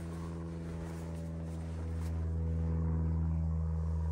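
A steady low engine drone, evenly pitched, growing a little louder about two seconds in.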